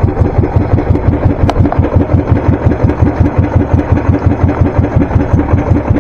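Small boat engine running steadily with an even, rapid pulsing beat, plus one sharp click about a second and a half in.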